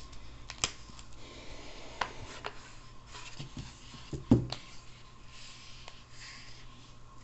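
Imbel AMZ knife and its sheath being handled: a few sharp clicks and some rustling, with one heavier knock about four seconds in.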